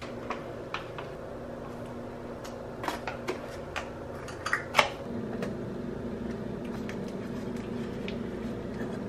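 A scatter of light clicks and taps from handling ground coffee and small metal capsule-refilling tools while refilling Nespresso pods on a stone countertop, the sharpest about five seconds in. A steady low hum runs underneath and grows slightly louder about halfway through.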